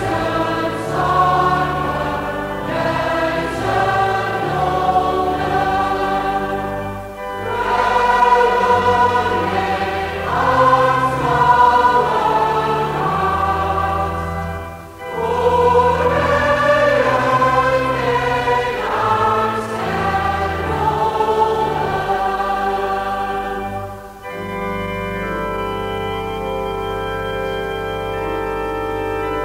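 A Dutch Reformed congregation singing a psalm slowly and non-rhythmically, in drawn-out equal notes, with a pipe organ accompanying. About 24 seconds in the singing stops and the organ carries on alone with long held chords.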